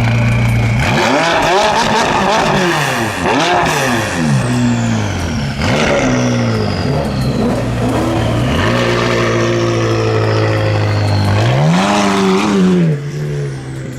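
McLaren 570S twin-turbo V8 revved in a series of quick blips, with high turbo whistles falling away after the revs, then settling to a steady fast idle before one more rev near the end.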